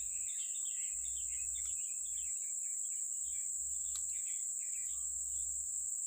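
Insects making a steady, high-pitched drone, with short bird chirps scattered over it and a low rumble that comes and goes. There is one sharp click about four seconds in.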